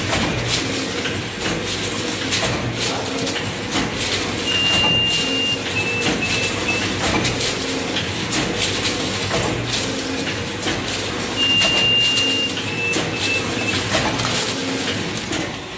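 Twin-die automatic paper plate making machine running: a steady machine hum with frequent clicks and clacks as the dies press plates and the rollers carry them out. About every seven seconds there is a group of short high beeps, one long and two or three short.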